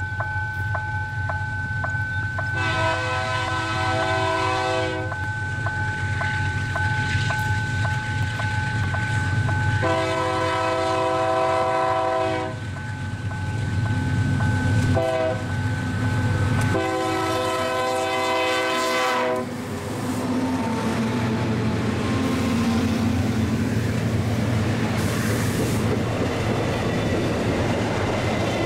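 Diesel freight locomotive sounding its multi-note horn for a level crossing: two long blasts, a short one and a long one, over the engine's steady rumble as it approaches. Then the wagons roll past with wheels clattering over the rail joints.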